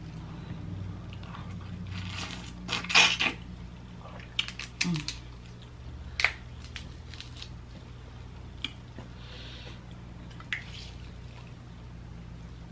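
Close, wet squishing and smacking as a lime wedge is squeezed over a boiled shrimp and the shrimp is bitten and chewed, loudest about three seconds in. Scattered small clicks follow, over a steady low hum.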